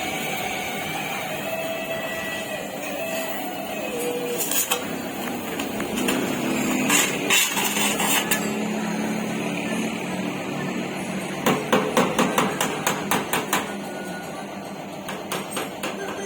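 Hammer striking car body sheet metal. A few single blows come first, then a quick run of about five blows a second, then some lighter taps near the end.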